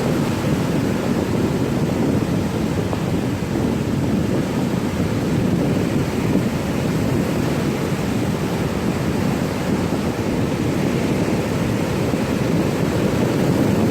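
Ocean surf: a steady, even wash of breaking waves, with no single crash standing out.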